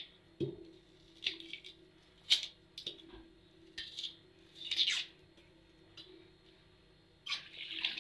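Scattered short crackles and rustles of dry, Eid-dried onion skin being handled and peeled. Near the end a kitchen tap starts running.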